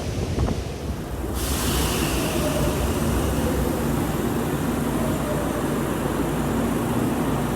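Electric commuter train running through the station: a steady rumble of wheels and running gear with a faint steady motor whine. A brighter hiss comes in abruptly about a second and a half in.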